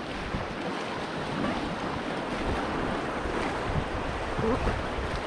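Steady rushing of river rapids around a packraft running through them, with wind buffeting the microphone.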